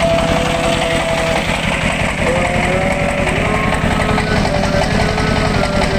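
Single-cylinder horizontal diesel engine running steadily with a rapid, even chugging beat, driving a generator. A tune of held notes that step up and down in pitch plays over it.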